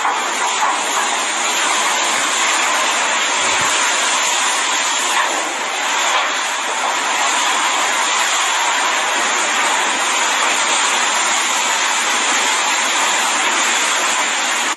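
Steady rushing noise of a storm, loud and even throughout with no breaks.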